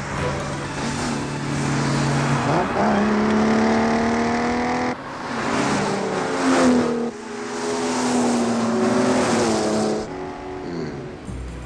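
Car engines revving hard at speed, the engine note climbing and then holding, with abrupt breaks about five, seven and ten seconds in.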